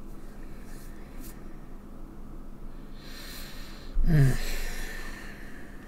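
A woman draws a breath about three seconds in, then lets out a short sigh that falls in pitch about a second later. A faint steady hum runs underneath.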